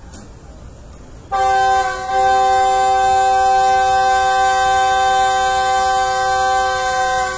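Diesel locomotive's air horn sounding one long blast, a steady chord of several tones, starting a little over a second in and holding for about six seconds with a brief dip near the start. It is the horn signal given as the train departs.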